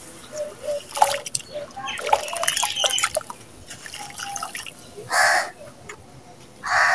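Dry sand-cement crumbled by hand and poured into a bowl of water: gritty crackling and splashing as it falls in. Near the end come two louder short sounds about a second and a half apart.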